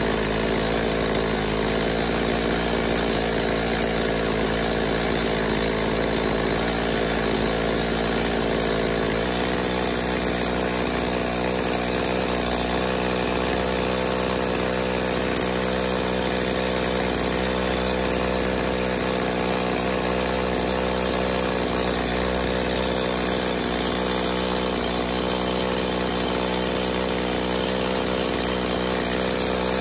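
Two-stroke chainsaw engine running steadily at idle while its low-speed carburettor needle is tuned for top idle RPM. About nine seconds in, the engine note changes abruptly to a slightly different, steadier pitch.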